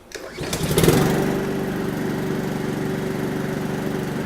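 Petrol lawnmower engine being started: it catches within about a second and then runs at a steady speed.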